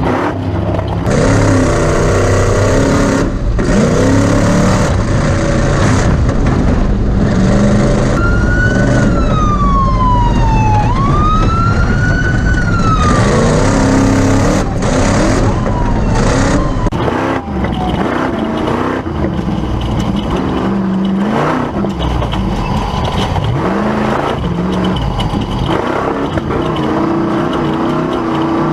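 Class 1450 Ford Ranger race truck's engine revving, its pitch climbing and dropping again and again. About a third of the way in, a siren wails for around five seconds, sliding down, back up, then down again.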